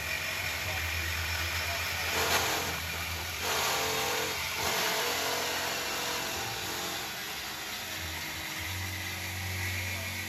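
An engine idling in a workshop: a steady, pulsing low hum that drops away midway and comes back near the end, with two louder bursts of rushing noise about two and three and a half seconds in.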